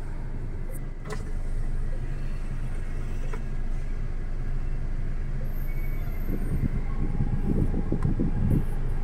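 A car driving at speed, with a steady low rumble of engine and tyre noise that grows louder and rougher from about six seconds in.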